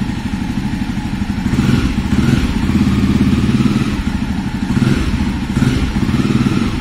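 Jawa Perak's single-cylinder engine running through its exhaust, swelling in revs several times as the throttle is blipped.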